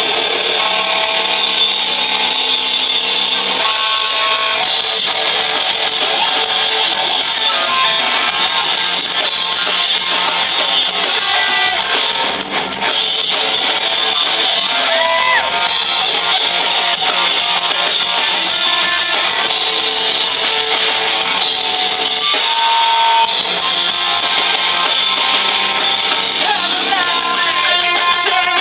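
Live rock band playing loud, with electric guitars to the fore and a dense, full sound, briefly dropping out for a moment about twelve seconds in.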